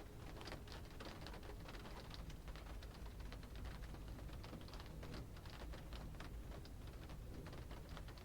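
Rain falling on a car's roof and windows, heard from inside the cabin: a dense, irregular patter of drop ticks over a steady low rumble.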